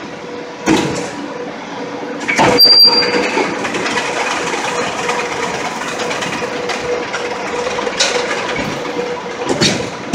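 Concrete block production line machinery running: a steady mechanical hum under repeated clanks and knocks as production boards are handled, the loudest clank about two and a half seconds in, followed by a short high squeal.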